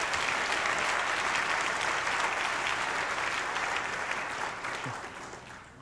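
An audience applauding steadily, dying away near the end.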